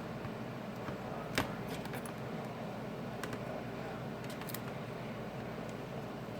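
Small parts and tools being handled during phone reassembly: a few light clicks and taps, the sharpest about one and a half seconds in, with a cluster of fainter ones later, over a steady low hum.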